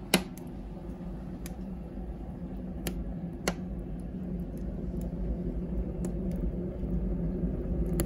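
Froling S3 Turbo wood boiler running: a steady low hum, slowly growing louder, with a few sharp cracks scattered through it, typical of the draught fan and freshly lit wood.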